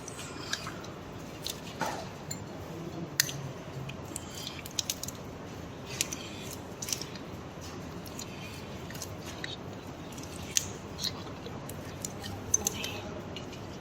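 Surgical instruments and orthopaedic wire clicking and clinking at irregular moments while the wire is worked around the fracture fragments to fix them together, over a low steady room hum.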